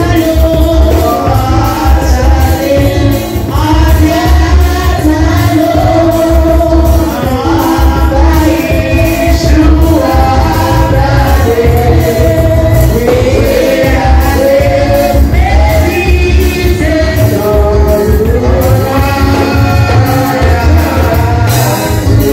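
Church worship music: singing over a live band, with a heavy bass beat and steady percussion.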